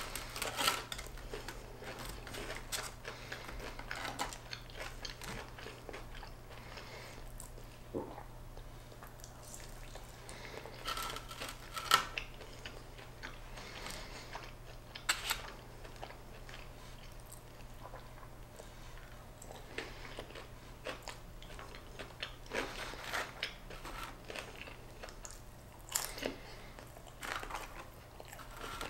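Close-miked chewing and crunching of fried chicken fingers, with wet mouth sounds and irregular sharper crunches, the loudest about 12 seconds in. A faint steady low hum runs underneath.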